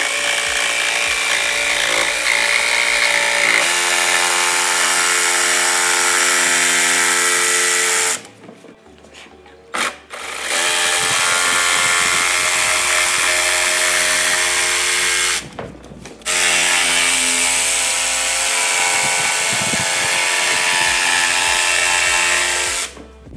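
Milwaukee 12-volt cordless jigsaw with a fine blade cutting through a plastic rear bumper, running in three long cuts with short pauses between them.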